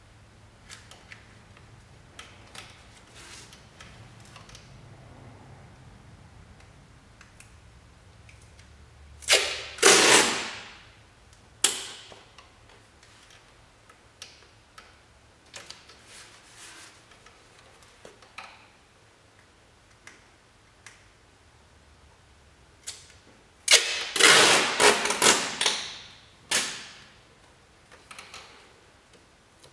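Green masking tape being pulled off the roll: loud ripping stretches a little before halfway and again in a cluster about 24 seconds in, with quiet taps and crinkles as strips are pressed down in between.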